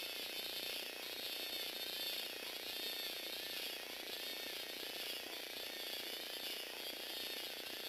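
Lego Technic walking robot's motor and plastic gear train running, a steady whirring whose pitch rises and falls in a regular cycle as the legs step.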